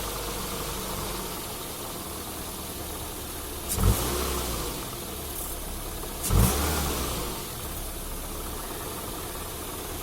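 Ford Fusion engine idling, with two sharp knocks about two and a half seconds apart, each followed by about a second of louder engine sound. This is the knock from the gearbox area that appeared after the clutch and release bearing were replaced.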